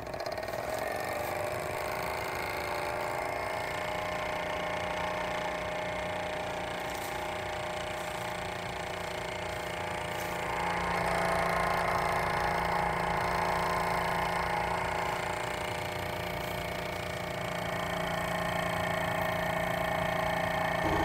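Small solar-heated Stirling engine picking up speed after its flywheel is pushed, then running steadily with a fast, even mechanical whir. Its pitch rises over the first second or two, and it gets somewhat louder about halfway through.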